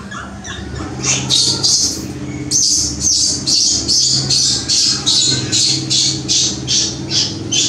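Baby macaque crying: short, high-pitched squeals repeated about three times a second, starting about a second in. It is the distress cry of an infant that wants milk.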